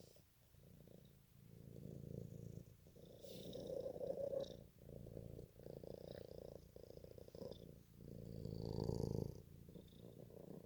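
Domestic cat purring steadily, the purr swelling in waves, loudest about four seconds in and again about nine seconds in.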